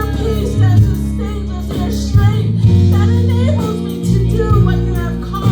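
Live worship song: a voice singing over guitar with sustained bass notes that change every second or so.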